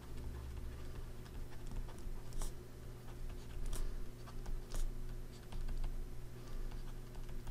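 Stylus writing on a graphics tablet: irregular light clicks and scratches of the pen tip on the surface, over a steady low hum.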